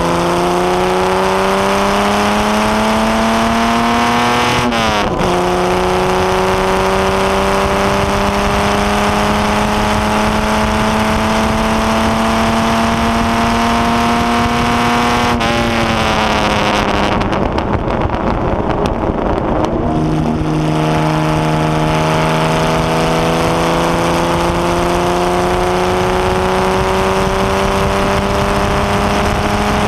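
Open-cockpit HW Alta-Jaguar's Jaguar straight-six running hard under acceleration, its pitch climbing steadily through each gear. It drops sharply at a gear change about five seconds in. About fifteen seconds in the pitch falls again and the sound turns rough and noisy for a few seconds, then the engine picks up and climbs again to the end, with steady wind hiss throughout.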